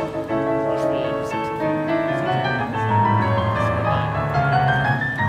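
Grand piano being played by hand: a melody over held chords and bass notes.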